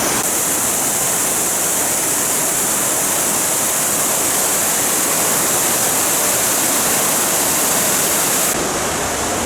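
Big Bradley Falls' water falling into the basin, a steady loud rush of water.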